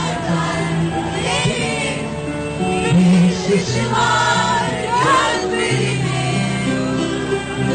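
A live band plays a slow pop-rock ballad with sustained chords while many voices sing the chorus along, a concert audience sing-along.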